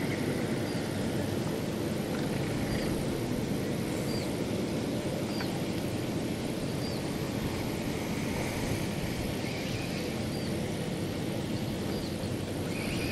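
Steady low rumbling outdoor noise, with faint short high chirps recurring every second or two.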